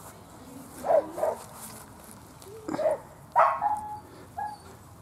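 A dog barking and yipping in several short calls; the loudest come about a second in and about three and a half seconds in.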